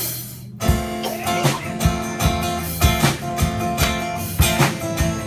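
Music led by a strummed acoustic guitar, with a steady beat that comes in about half a second in.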